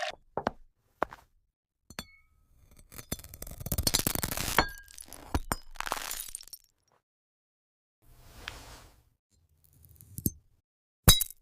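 Sharp glass clinks and taps, with a dense run of crackling, breaking-glass sounds about three to five seconds in.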